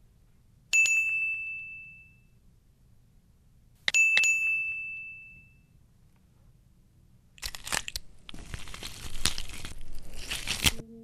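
Two bright notification dings about three seconds apart, each ringing out and fading over a second or so. From about seven seconds in come a few seconds of crackling, tearing noise as a rubbery fake-skin layer is peeled off a face.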